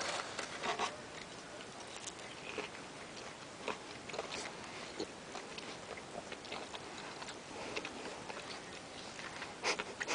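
A person eating a grilled Double Down sandwich: soft, scattered chewing and biting with small clicks and ticks, a few closer together near the end.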